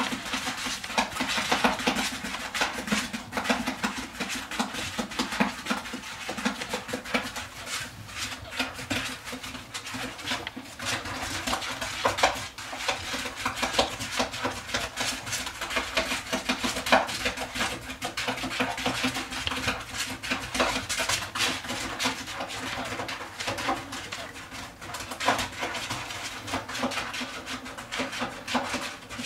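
Shredded paper bedding rustling and crackling as a corgi puppy walks and noses through it, a dense run of small sharp crackles.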